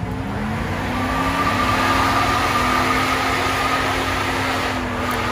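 A truck doing a burnout: the engine is held at high revs while the tires spin and squeal. The revs dip briefly at the start, then climb back and hold steady.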